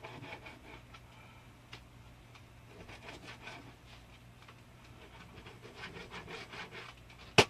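A kitchen knife sawing back and forth through raw chicken on a cutting board, in runs of short strokes, with one sharp knock near the end.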